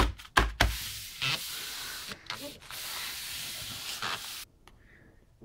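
Hand rubbing across the foam filling an electronics enclosure: a steady scratchy hiss for about four seconds that cuts off abruptly, after two dull bumps from handling at the start.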